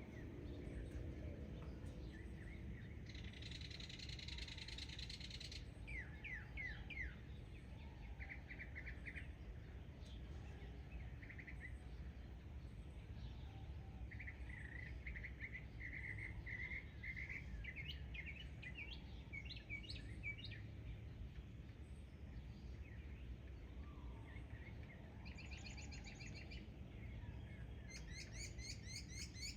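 Small birds chirping and trilling in scattered call series with pauses between them. One fast run of repeated notes comes about halfway through, and sharper high chirps come near the end, over a faint steady low rumble.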